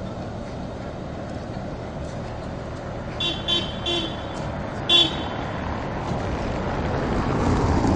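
A tram's warning horn gives three quick short toots and then a fourth about a second later, over a steady low street rumble. The rumble grows louder near the end as the tram creeps forward.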